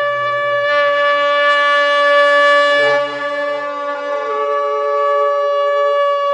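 Eerie trumpet-like drone of the kind reported as a 'strange sound from the sky': a loud, steady, horn-like tone, held throughout, with a lower layer that shifts in pitch about halfway through.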